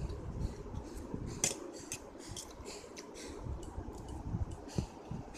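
Metal fork clicking and scraping against a stainless steel plate as noodles are picked up, many short irregular clinks, with low handling noise of eating underneath.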